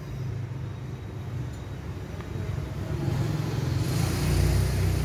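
A motor engine running somewhere nearby with a low, steady hum, getting louder from about three seconds in, with a hiss joining it near the end.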